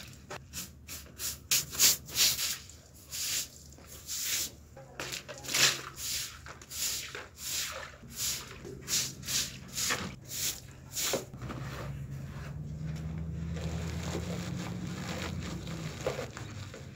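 Stiff-bristled push broom sweeping water across wet concrete in short scraping strokes, about two a second. About eleven seconds in the strokes stop, leaving a steady low hum.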